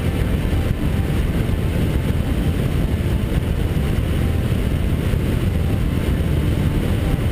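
Caterham R300 Superlight heard from an onboard camera in its open cockpit while cruising at steady road speed: a steady, even rush of engine, road and wind noise.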